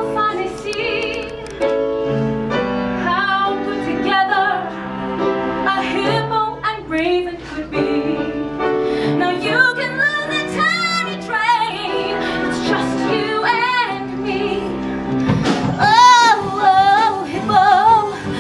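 Live piano accompaniment with a woman singing. Her held notes waver with vibrato and grow louder in the second half, strongest near the end.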